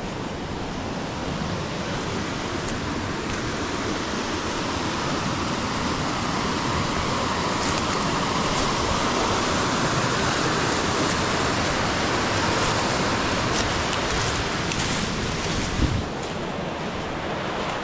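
Steady rush of flowing stream water, swelling a little in the middle, with one dull thump near the end.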